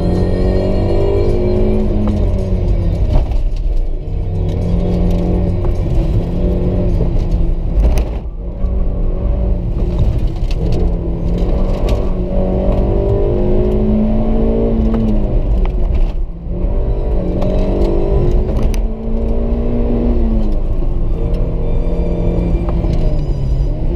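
Suzuki Swift Sport's four-cylinder engine heard from inside the cabin, driven hard: revs climb and hold, then drop briefly several times as the throttle is lifted for the corners, before climbing again.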